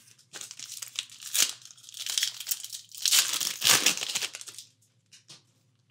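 Foil wrapper of a trading card pack being torn open and crinkled by hand, in irregular rustling bursts that stop just before 5 seconds in.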